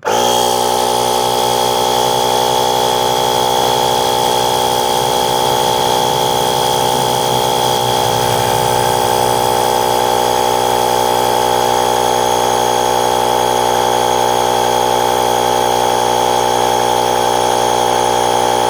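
Portable 12-volt air compressor built into a VTOMAN X7 jump starter, switching on abruptly and running steadily with a buzzing drone and a high whine as it pumps a car tyre up from 29 toward 34 psi.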